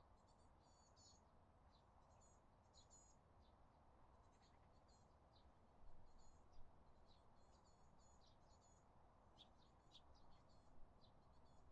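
Faint birdsong: small birds chirping in quick, high, repeated notes throughout, over a low steady background rumble.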